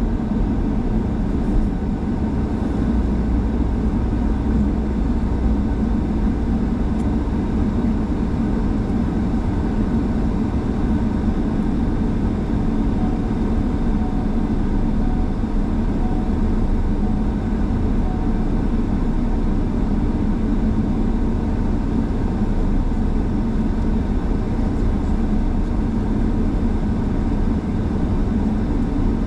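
Motorhome driving at a steady cruising speed: a continuous drone of engine and tyre noise, heaviest in the low end, with no change in pitch or level.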